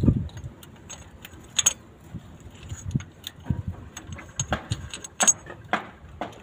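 Irregular light metallic clinks and knocks from small metal parts and hand tools being handled while fitting an engine's fuel injectors.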